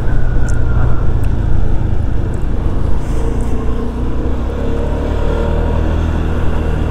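Scooter engine running steadily while riding along the road, a constant low drone that gains a few higher steady tones about halfway through.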